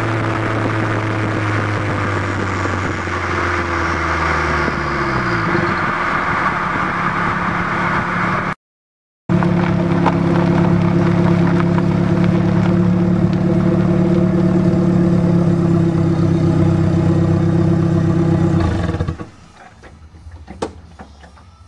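Exhaust of a Dodge Shelby Z's turbocharged four-cylinder, heard from beneath the car while it drives: a steady drone over road noise, with engine speed falling about five seconds in. After a brief break it drones steadily again, then drops away near the end.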